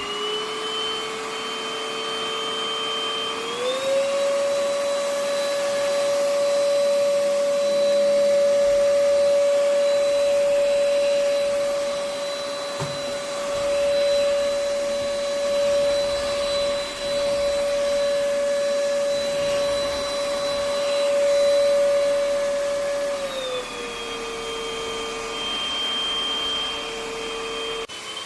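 UML0 N8 cordless stick vacuum running with a steady motor whine. About three seconds in the whine steps up to a higher pitch as it goes to its higher power setting, and it drops back to the lower pitch near the end.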